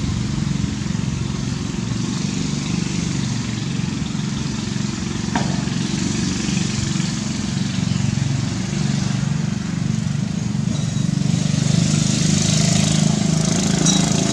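Steady low drone of an engine running, with no change in pitch and a louder hiss near the end.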